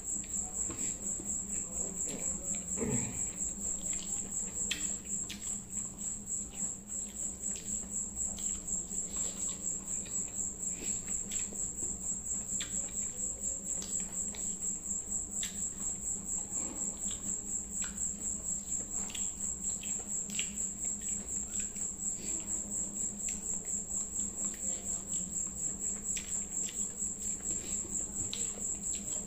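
A cricket chirping steadily, a high trill pulsing about twice a second, over a low steady hum. Faint wet clicks and smacks come from eating rice and gravy by hand and chewing.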